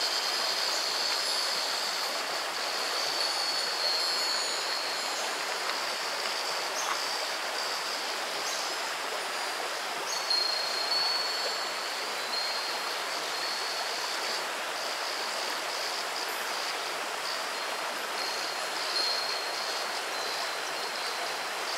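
Shallow river babbling steadily over a pebble bed, with a steady high-pitched shrill note above it that shifts pitch slightly now and then.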